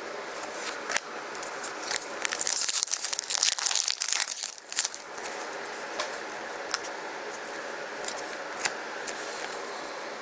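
Plastic crinkling and rustling as trading cards are handled, loudest for about three seconds starting about two seconds in, followed by a few light clicks and taps.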